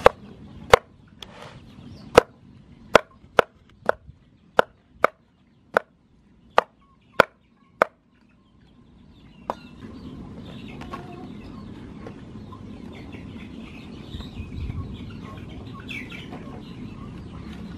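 Cleaver chopping eggplant on a round wooden chopping board: about a dozen sharp, unevenly spaced chops that stop about eight seconds in.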